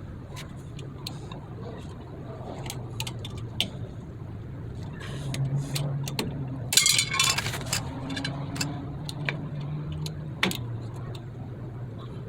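Small metal brake parts clinking and clicking as they are handled, with a louder metallic clatter and scrape about seven seconds in, over a low steady hum.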